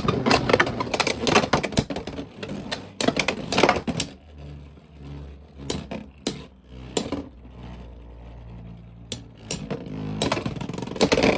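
Two Beyblade X spinning tops, Talon Ptera and Wyvern Gale, battling in a plastic stadium: a rapid flurry of clacking hits for the first few seconds, then a quieter spell of spinning hum with a few scattered knocks, and another burst of hard hits near the end.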